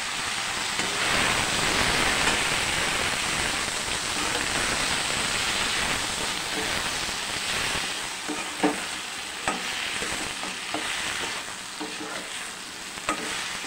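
Okra and capsicum sizzling in hot oil in a nonstick kadai as they are stirred and tossed with a metal slotted spatula. A few sharp clicks of the spatula against the pan come in the second half.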